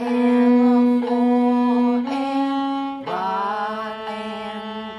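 Viola bowed in a slow melody: three sustained notes of about a second each, then a lower note held from about three seconds in.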